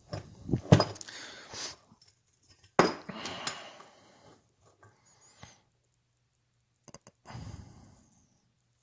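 Handling noise as metal crankshaft parts are moved and compared by hand: a few sharp knocks and clinks, the loudest about a second in and again near three seconds, with scuffing and rustling between them.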